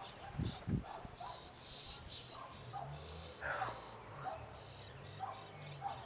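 Birds calling: short chirps repeating about once a second over a steady, high-pitched cheeping. Two low thumps come about half a second in.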